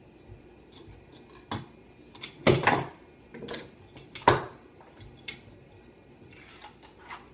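Metal kitchen utensils knocking and clattering: a stainless potato ricer and a kitchen knife handled on a wooden cutting board. About seven separate sharp clacks, the loudest about two and a half and four seconds in.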